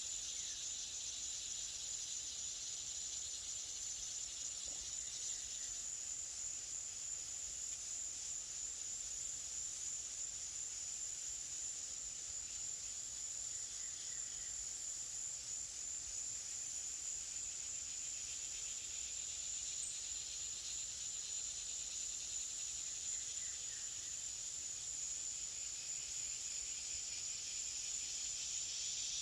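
Forest ambience of a steady, high-pitched insect chorus, an unbroken shrill drone, with a few faint chirps now and then.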